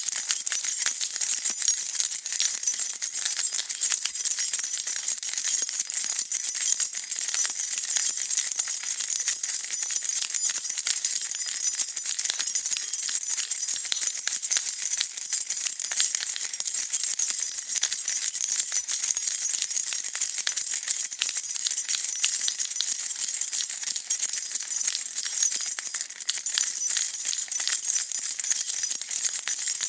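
A bunch of metal keys shaken continuously, jingling and clinking together without pause.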